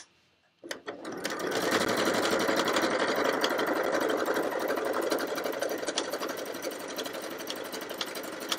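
Electric household sewing machine stitching steadily at a fast, even rate, starting just under a second in after a single sharp click. It is sewing the triple straight stitch, the one that goes forward and back several times.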